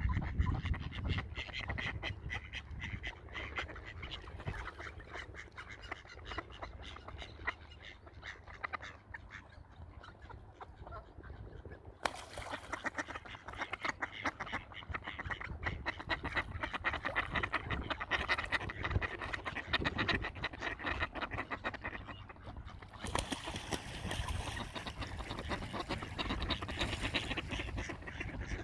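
A group of ducks quacking and chattering continuously over a low rumble. The background changes abruptly twice, about twelve and twenty-three seconds in.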